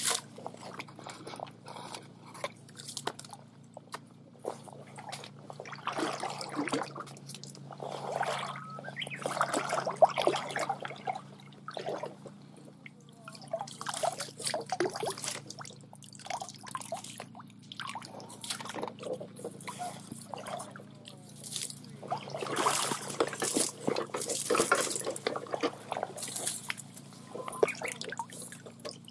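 Hand net being worked through shallow water: irregular bursts of splashing and dripping, busiest about a third of the way in and again past the middle.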